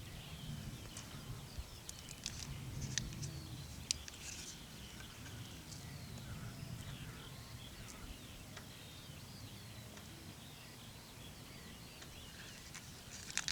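Faint birdsong: small birds chirping over and over, over a low steady rumble, with a few soft clicks.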